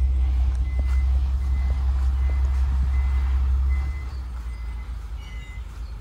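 Bulk feed tanker truck running with a strong low drone that drops off about four seconds in, while a short high beep repeats about once a second.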